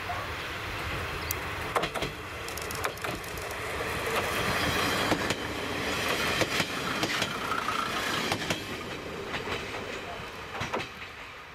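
JNR-era KiHa 28 and KiHa 52 diesel railcars passing at close range, engines running and wheels clacking sharply over rail joints. The sound builds as the train comes alongside and fades away near the end.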